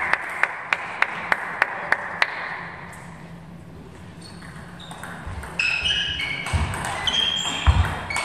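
A table tennis ball bouncing, a regular run of light clicks about three a second that stops after about two seconds. From about five seconds in, during a rally, sneakers squeak sharply on the sports-hall floor and footwork thuds sound.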